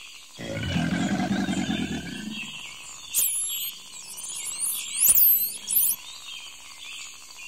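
Intro sound effects over a bed of bird chirping: a low, pitched sound lasting about two seconds near the start, then high sliding whistles around three and five seconds in.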